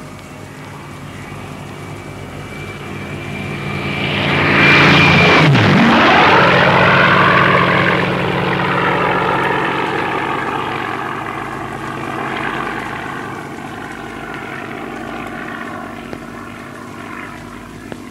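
Propeller-driven aircraft flying past overhead: its engine grows louder over the first few seconds, drops sharply in pitch as it passes about five seconds in, then fades slowly away.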